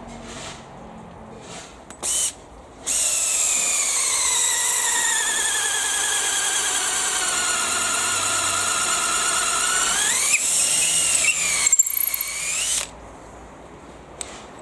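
Makita XFD01 18V cordless driver-drill in high gear, boring with a 10 mm auger bit. After a brief trigger blip it runs as a steady high whine for about ten seconds, the pitch sagging slowly under the load. Near the end the pitch rises again before the drill stops.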